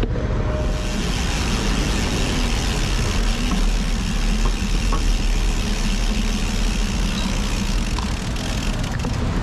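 Steady wind and road noise from riding a bicycle along a road: a loud low rumble of wind on the microphone under an even hiss, with traffic noise.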